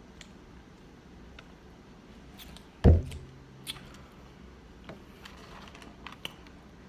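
Light clicks and handling noises while eating at a table, with one loud, dull thump about three seconds in and a few softer ticks after it.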